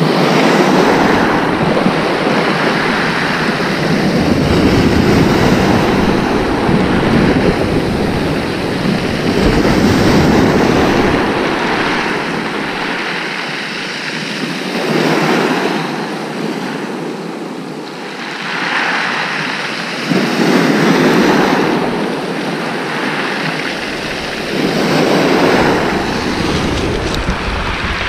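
Sea waves breaking and washing over a shingle beach, surging and easing about every five seconds, with wind buffeting the microphone.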